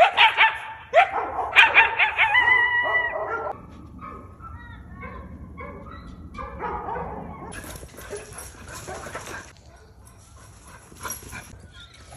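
Coyote barking and yipping, with a few drawn-out high howling notes. The calls are loudest in the first three seconds or so, then go on fainter and more broken.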